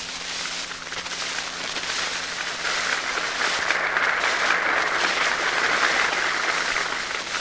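Large outdoor crowd applauding and cheering, swelling about three seconds in and easing near the end. The old recording adds a steady hum and hiss.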